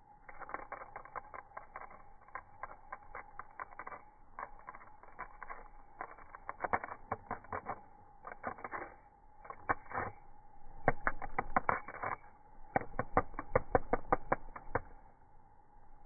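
A cicada's wings beating and scraping against asphalt as it struggles to right itself, slowed down: irregular runs of rapid clicking in clusters, loudest in the last third and stopping about a second before the end. A steady hum sits under it throughout.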